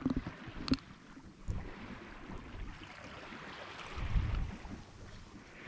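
Water hissing along a Westsail 32 sailboat's hull as she sails in light air, with wind buffeting the microphone in low rumbles, strongest about four seconds in. A small knock sounds near the start.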